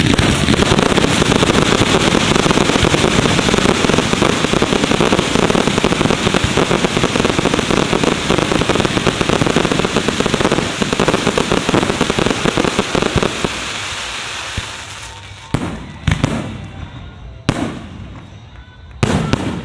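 Fireworks barrage: many bursts firing in rapid, overlapping succession as a dense, continuous crackle and boom, with ground-fired effects and aerial shells going off together. After about thirteen seconds it thins out, leaving a few separate loud bangs near the end.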